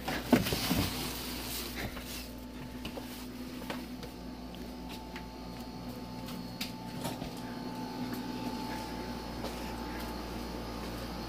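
Cardboard box rustling and being shifted about, loudest in the first second, then scattered light footsteps and knocks over a steady low hum.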